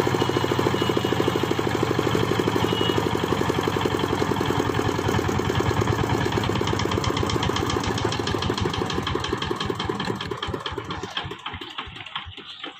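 Power tiller's single-cylinder diesel engine running steadily, then shut off: from about halfway the firing slows into separate beats and dies away, stopping just before the end.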